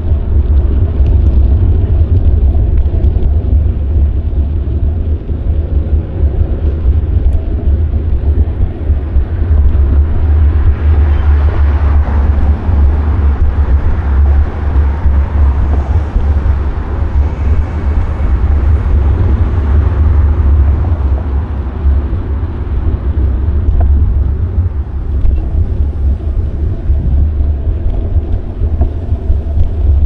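Wind buffeting the microphone of an action camera on a moving bicycle: a loud, steady low rumble. A broader rushing noise swells up about ten seconds in and fades out again about ten seconds later.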